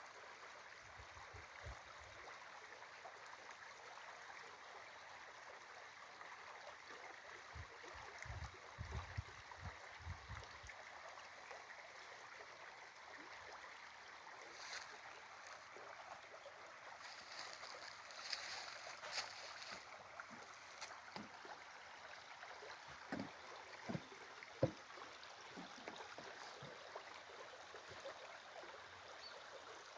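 Steady flowing water, like a small stream, with a few low thumps now and then and brief hissy rustles in the middle.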